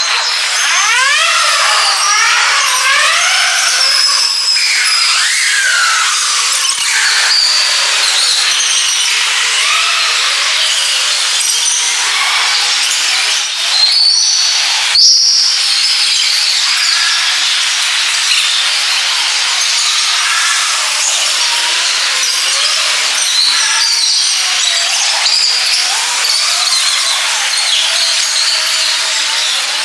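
Wheels of many inline skates rolling on tunnel asphalt in a loud, steady whirring rush, with rising and falling whines and echo from the tunnel walls. A couple of sharp cracks come about halfway through.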